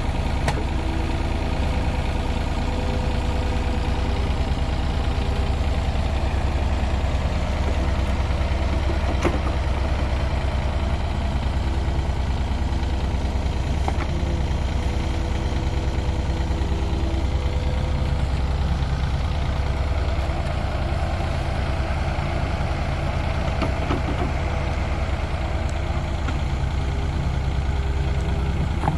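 Diesel engines of a CAT 305 CR mini excavator and a Yanmar C30R tracked dumper running steadily at close range while the excavator digs and loads soil. A few faint knocks come from the bucket working.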